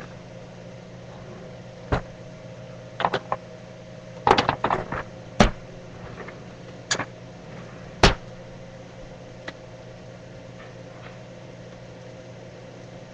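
Pans and utensils clattering on a stovetop: a string of sharp metal knocks and clinks, bunched together about three to five seconds in, over a steady appliance hum.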